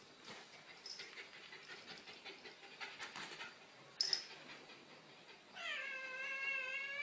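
A pet's long, drawn-out cry near the end, dipping slightly and then holding one pitch, after faint scuffling and a brief sharp click about four seconds in.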